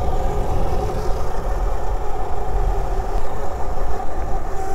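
Burromax electric minibike riding along: a steady motor whine over a heavy rumble of wind on the microphone.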